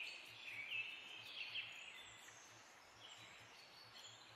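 Faint bird chirps in the background: short, high calls, several in the first two seconds, then fewer and fainter, over quiet room tone.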